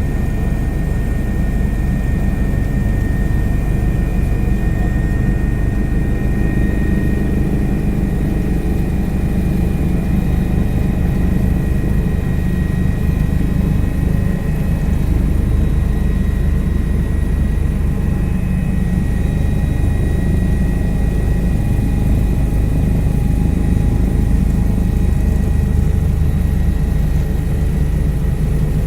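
Helicopter in flight, heard from on board: a steady, loud drone of rotor and turbine with a fast rotor beat underneath and a few thin steady whining tones above it.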